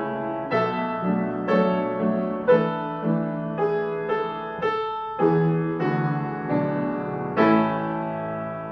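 Slow, gentle solo piano music: notes and chords struck about every half second to a second, the last chord near the end held and left to fade.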